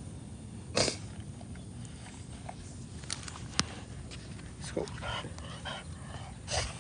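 French bulldog snorting and sniffing in short, noisy bursts: a strong snort about a second in, a cluster of quicker sniffs around the five-second mark, and another snort near the end.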